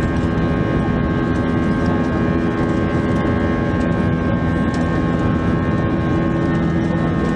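An Airbus A320's IAE V2500 turbofan engines running at high power during takeoff, heard from inside the cabin: a loud, steady rumble with several steady whining tones over it.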